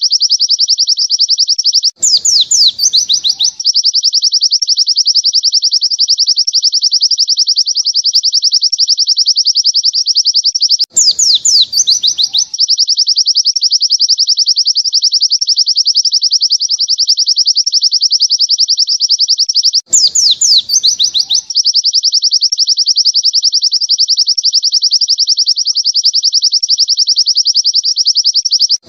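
White-eye (pleci) singing its long, unbroken 'nembak panjang' song, a fast high trill of rapid repeated notes. About every nine seconds a short falling flourish breaks in as the same phrase repeats. This is a masteran tutor song for training caged white-eyes.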